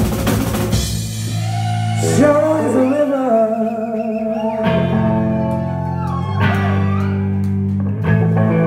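Live band jamming: drums play through the first second, then held guitar and bass chords ring out, with a singing voice over them.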